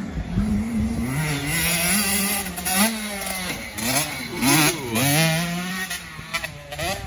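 Dirt bike engine revving and easing off repeatedly as it is ridden, its pitch climbing and dropping several times with the throttle.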